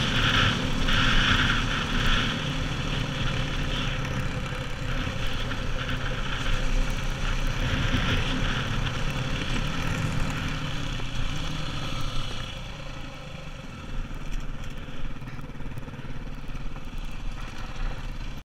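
KTM supermoto's single-cylinder engine running under way, heard from an onboard camera with wind rushing over the microphone. The sound eases off about two-thirds of the way through.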